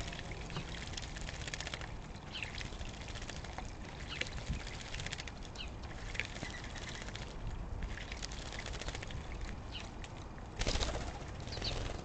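Small birds bathing in a bird bath, splashing water and fluttering their wings, with a few short high chirps. A louder flurry of splashing and wingbeats comes near the end.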